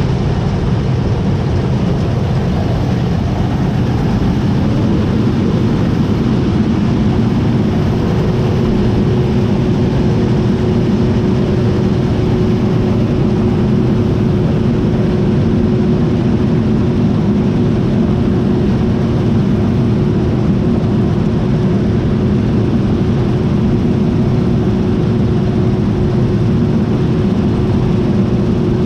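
John Deere T660i combine harvester running steadily, a dense, even mechanical drone of engine and machinery, with a steady whine joining several seconds in and holding.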